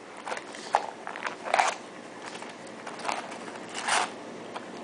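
A few short scrapes and clicks of a gun-cleaning rod and cleaning-kit parts being handled, the rod tip screwed into place.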